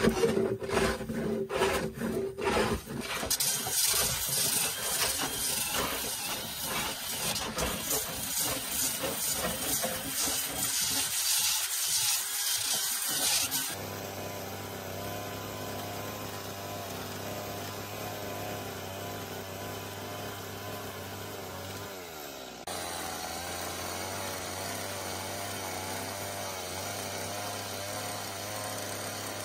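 Hand tools scraping over a wooden slab in repeated strokes, then a drill with a sanding disc grinding the charred surface with a loud hiss for about ten seconds. From about 14 s in, a Stihl chainsaw runs steadily and more quietly as it shaves off the blackened layer.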